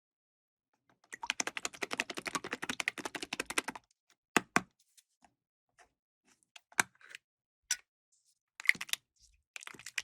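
A fast run of small sharp clicks for about two and a half seconds, then a handful of separate clicks and taps, like small hard parts being worked by hand.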